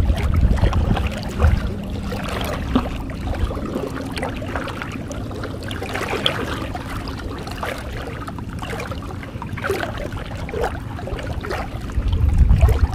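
Water sloshing and lapping around a small boat, with wind buffeting the microphone as a low rumble at the start and again near the end.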